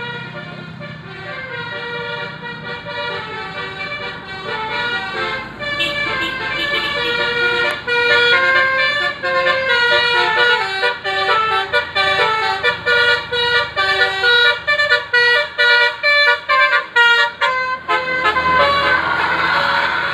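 Bus 'telolet basuri' musical horn playing a tune of stepping notes over a low engine hum. From about eight seconds in the notes turn short and quick, in rapid staccato. A rushing noise swells near the end.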